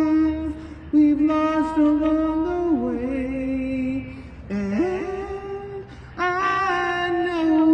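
Wordless singing: a solo voice holds long notes and slides between pitches in several phrases, with short breaks between them, over faint backing.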